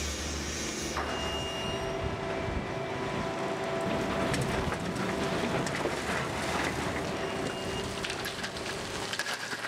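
Heavy machinery running with a steady whine. From about three seconds in, a load of broken rock pours from a wheel loader's bucket into a Volvo FMX truck's steel tipper body with a dense rattling and crackling.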